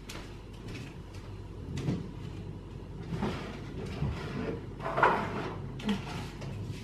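Kitchen handling sounds: a few soft knocks and rustles, the loudest about five seconds in, over a low steady hum.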